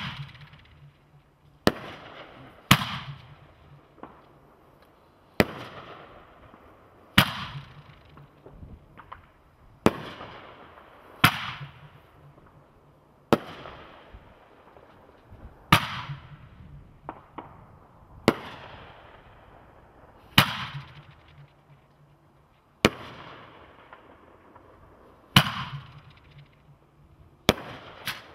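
Brothers Pyrotechnics Big V consumer fireworks cake firing its 2-inch shells one after another. Sharp bangs come about every one to three seconds, each fading out in a trailing echo as the tailed shells lift and burst.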